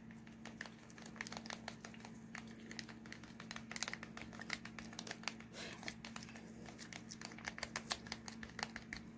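Acrylic pouring medium being stirred into wetted pigment in a small plastic cup: faint, irregular clicks and scrapes of the stirring stick against the cup, with rustling of nitrile gloves, over a steady low hum.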